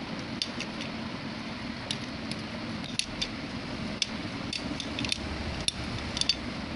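Hollow plastic dominoes clicking and clattering against each other and the plastic loading tray of a toy domino train as they are handled and slotted in: about a dozen sharp, light clicks at irregular intervals.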